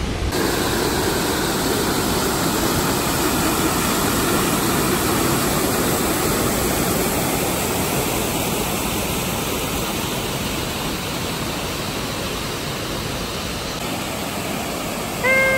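Steady rush of water from a mountain river and waterfall, a full, even roar of falling and tumbling water. Near the end a brief steady pitched tone sounds for about a second.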